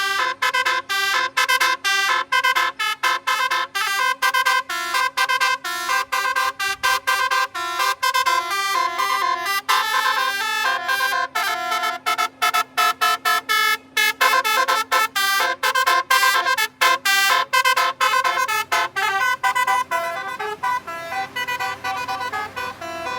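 Indonesian 'telolet basuri' multi-tone bus horn playing a fast tune in short, choppy notes, several a second, over a steady low tone. It grows softer near the end.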